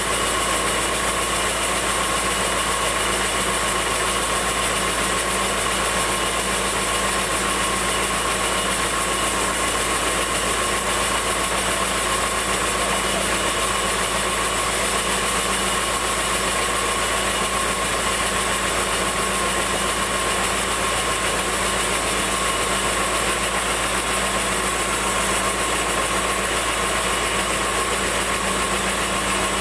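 Sawmill band saw and its drive running steadily: a constant machine drone with a held tone, unchanging throughout.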